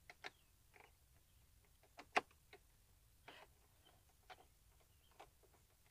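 Faint, irregular clicks of a hand screwdriver turning a screw into a plastic tail-light lens, one every half second to a second.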